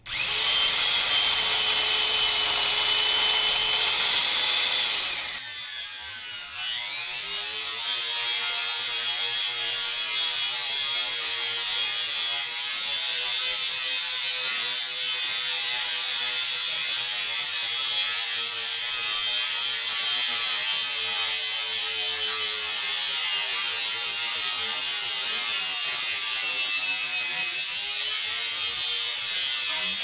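Black and Decker 550W Alligator powered lopper, a corded electric chainsaw lopper, switched on sharply and cutting through a thick tree branch. It runs loudest for the first five seconds, eases briefly, then runs on steadily with its pitch wavering as the chain works through the wood.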